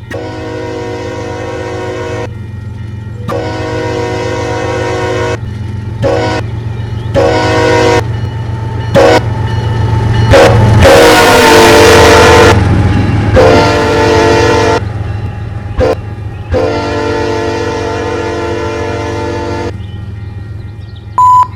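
Diesel freight locomotive sounding its air horn in a series of long and short blasts over the steady rumble of the engine, the horn loudest about ten to thirteen seconds in as the locomotive passes close by.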